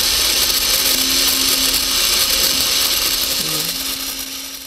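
Small geared electric motor running steadily, whirring and grinding as it pulls on the springs of a spring-and-block fault model, fading out near the end.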